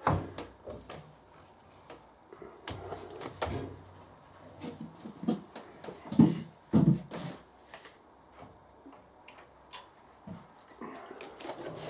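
A cogged drive belt being pulled and levered by hand onto a milling machine's stepped pulleys: irregular knocks, scrapes and clunks, with two heavier thumps about six and seven seconds in. Near the end a steady running noise starts and builds as the mill is started up.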